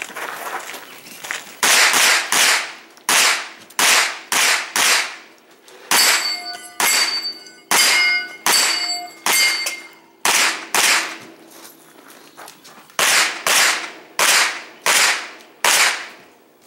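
A pistol-caliber carbine firing a fast stage, about two shots a second in strings of several shots with short pauses between. In the middle strings the hits ring on steel targets.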